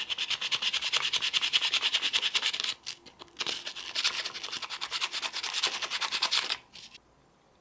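Sandpaper rubbed back and forth in quick short strokes, about eight a second, scrubbing rust off a corroded battery contact in a solar light fixture. Two runs of sanding with a short break about three seconds in, stopping near the end.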